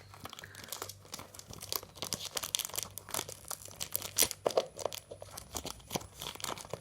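AirPods box packaging being handled: irregular crinkling and rustling of wrapping and cardboard, with small scattered taps and clicks.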